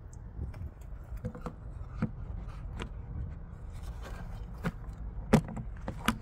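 Handling noise as a phone camera is picked up and propped in place: scattered clicks, taps and scrapes, with a sharp knock a little past five seconds in, over a low background rumble.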